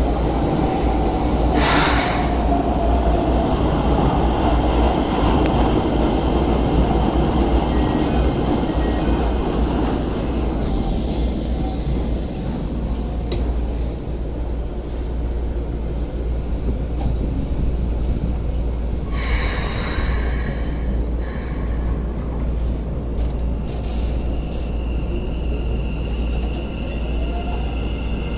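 Keikyu N1000 series electric train heard from inside the car, running underground: a steady rumble of wheels on rail with the faint gliding whine of its VVVF inverter motor drive, falling near the start and rising near the end. Short hissing bursts come about two seconds in and again about twenty seconds in.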